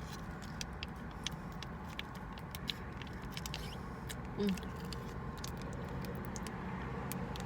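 Light clicking and rustling of takeout food packaging and ketchup packets being handled, a scatter of small sharp ticks over a steady low hum.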